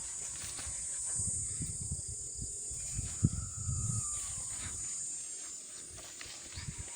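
Steady high-pitched insect chorus, with irregular low rumbling from wind on the microphone or handling and a single sharp knock about three seconds in.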